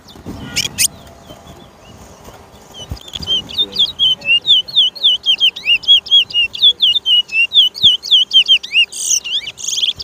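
Caged towa-towa songbird singing a fast, loud run of looping whistled notes, about four or five a second, starting about three seconds in. There are a couple of sharp clicks near the start.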